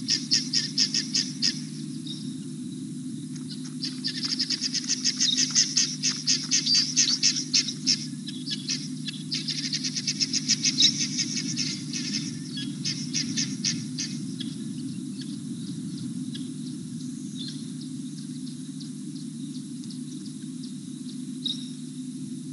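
A bird calling in rapid high-pitched chirping trills, in runs of a few seconds that give way to scattered single chirps after about two-thirds of the way through, over a steady low hum.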